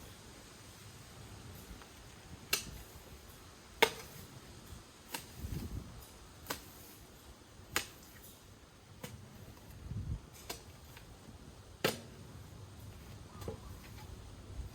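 A series of sharp clicks or taps, roughly one every second or so, with soft low thuds in between.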